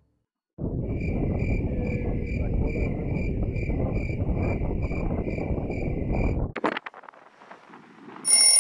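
Wind blowing on the microphone, with a faint high beep repeating about twice a second over it. Near the end a shrill ringing electronic alarm starts.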